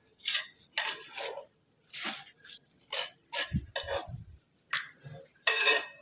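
Irregular short scrapes and clinks of handwork on stone cladding, with two dull knocks a little past halfway.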